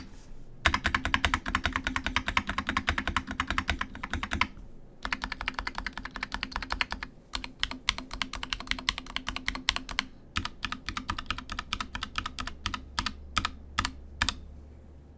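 Keychron V3 TKL mechanical keyboard with brown switches being typed on: fast runs of key clacks with short pauses between them, the strokes more spaced out in the last few seconds.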